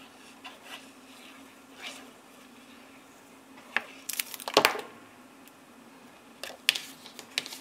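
Paper and card being handled on a cutting mat, with a liquid glue bottle being used and set down: light rustles and a few short clicks and taps, the loudest a cluster about four and a half seconds in, over a faint steady hum.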